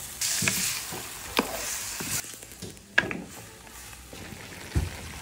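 Raw turkey pieces sizzling in a hot refrito in a pot as a wooden spoon stirs them, with a few sharp knocks of the spoon against the pot. The sizzle is strongest for about the first two seconds, then dies down.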